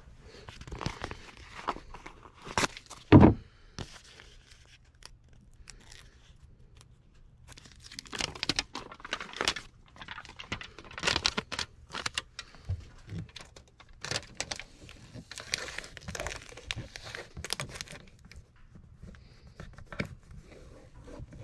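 Foil tape being unrolled, torn and pressed down onto foil-faced duct board, with irregular crinkling and crackling of the foil. One loud knock about three seconds in.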